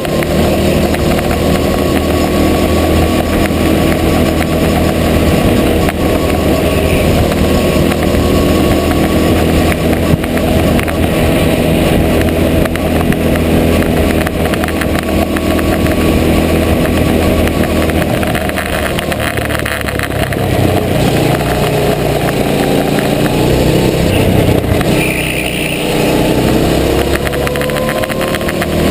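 Go-kart engine heard from on board, held at steady high revs, easing off about two-thirds of the way through and then climbing in pitch again near the end as it accelerates.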